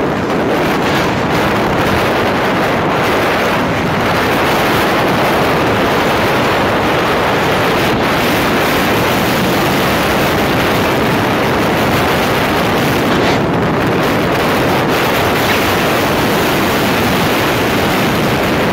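Loud, steady wind rush buffeting the microphone of a motorcycle ridden at about 87 km/h in fifth gear, with the engine barely standing out beneath it.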